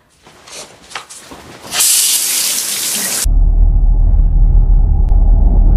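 Water running hard from a tap for about a second and a half, cut off abruptly by a loud, steady deep rumble from the film's horror sound design.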